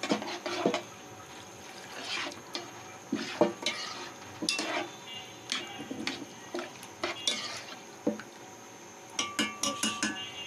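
A spoon stirring a wet, creamy mixture of chicken pieces and prawns in a coated pan, knocking and scraping against the pan at irregular moments, with a quick run of clicks near the end.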